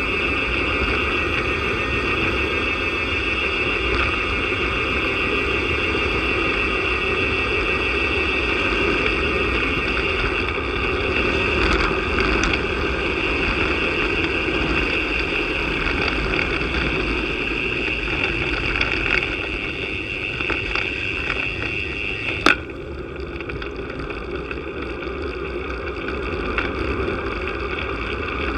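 Wind rushing over the microphone and tyre noise on asphalt from a road bike riding at speed: a steady rush with a low rumble underneath. A single sharp click about 22 seconds in, after which the rush gets a little quieter.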